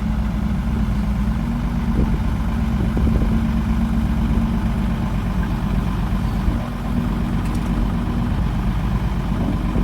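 Dump truck's diesel engine idling steadily at an even, unchanging pitch.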